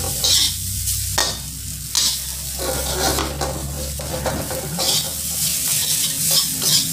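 Fried rice being stir-fried in a metal wok, sizzling, while a metal spatula scrapes and turns it in repeated irregular strokes.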